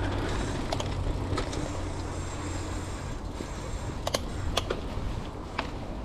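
Bicycle riding over a dirt trail: steady rolling and wind noise, with sharp clicks and rattles from the bike over bumps, several of them around four to five seconds in.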